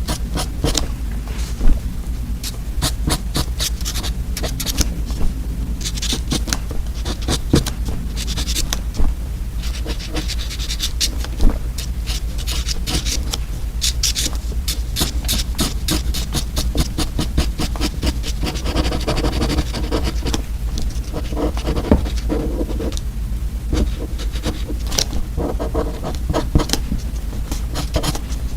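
Close-miked crisp crackling and crunching of edible paper candy, a dense run of sharp clicks with a few louder snaps, over a steady low hum.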